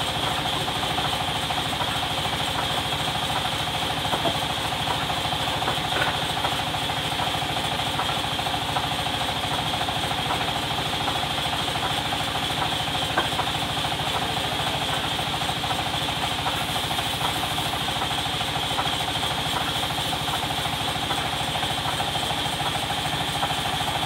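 Band sawmill running steadily: an even mechanical drone with a constant high whine, its loudness unchanging throughout.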